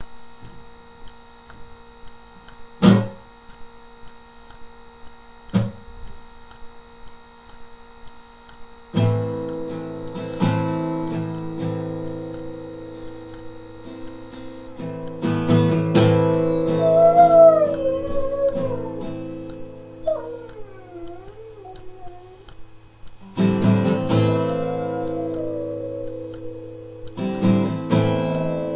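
A dog howling along to music. A few chords are struck and left to ring, and in the second half the dog's howl rises and falls in long, wavering glides, twice.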